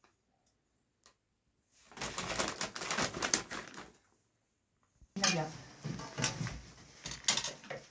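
Near silence, then people talking from about two seconds in, with a metal serving tray clinking now and then.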